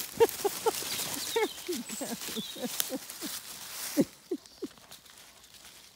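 Dog whimpering: a quick string of short, falling whines, about four a second, growing fainter near the end.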